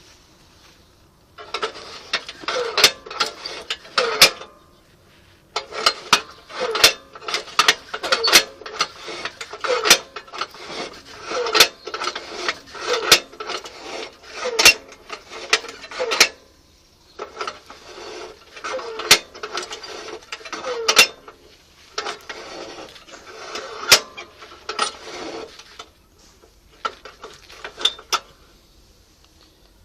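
Metal clicking and ratcheting with scraping between the clicks, in several bursts of a few seconds with short pauses, from a mechanism worked by hand; no engine running.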